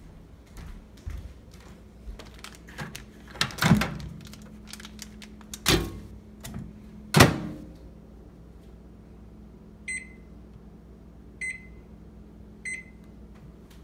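Microwave oven being loaded and set: handling rustle and three loud clunks as the door is opened, a foil-wrapped cloth packet set on the glass turntable and the door shut, the last clunk the loudest. Then three short keypad beeps about a second and a half apart as the cooking time is keyed in.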